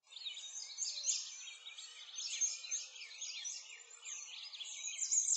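Many small birds chirping at once: a dense chorus of quick, high chirps that rise and fall in pitch.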